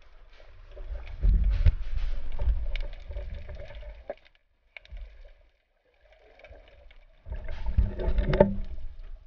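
Underwater water noise picked up through a GoPro Hero 3's waterproof housing as a spearfisher moves the speargun about: two bouts of loud low rumbling and sloshing with knocks. One comes about a second in and the other near the end, with a short near-silent gap between.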